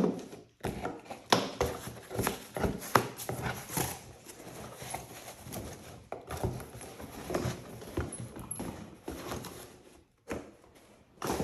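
Packaging and box contents being handled and moved aside: a string of irregular knocks and thuds mixed with rustling.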